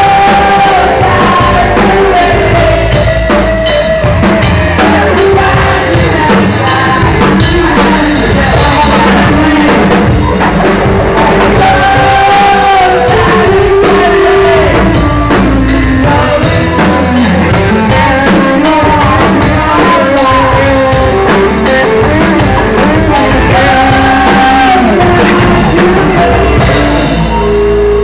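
Live rock band playing loudly, an electric guitar carrying a wavering melodic line over a drum kit. The music thins out in the high end near the end.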